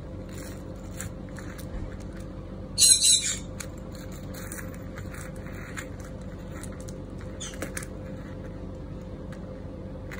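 Handling of a phone case and its gold metal plate and chain accessory: light clicks and taps, with a short, louder metallic rattle about three seconds in, over a faint steady hum.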